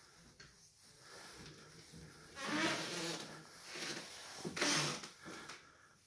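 Hinged wardrobe door being opened, with two rubbing, scraping sounds: a longer one about two and a half seconds in and a shorter one about four and a half seconds in.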